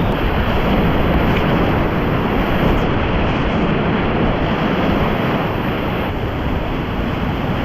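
Steady rushing of whitewater river rapids, an even, unbroken noise.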